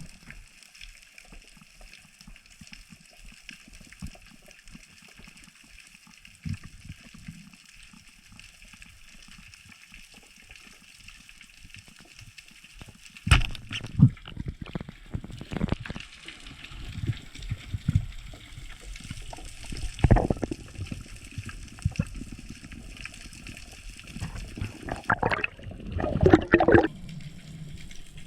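Water sloshing and gurgling, faint for the first half, then louder irregular splashing surges from about halfway through.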